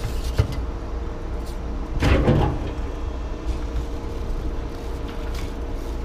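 Steady low running rumble of an engine or machinery, with scattered knocks and one louder clatter about two seconds in.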